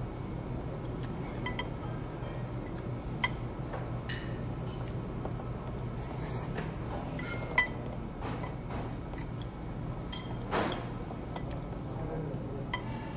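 Metal fork and knife clinking and scraping against ceramic plates and a bowl while eating. Scattered light clinks, with four sharper ones standing out, over a steady low hum.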